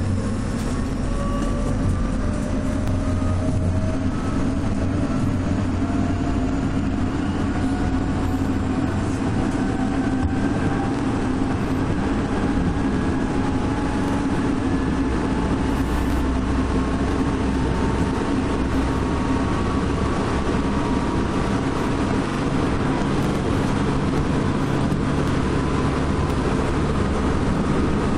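Odakyu 2000 series electric train heard from inside motor car DeHa 2407: traction motor whine rising slowly in pitch as the train gathers speed, over a steady rumble of wheels on rail.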